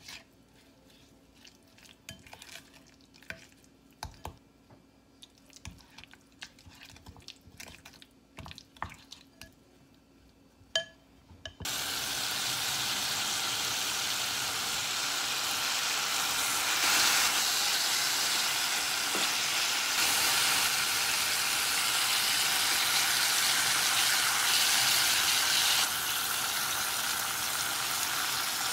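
A wooden spatula stirs webfoot octopus in gochujang marinade in a glass bowl, giving soft scattered clicks and scrapes. About twelve seconds in, pork belly and green onion start sizzling in a hot pan, a steady frying sound to the end.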